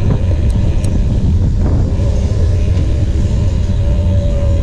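Wind rumbling steadily on the microphone of an action camera mounted on a moving bicycle, with the tyres rolling on asphalt underneath.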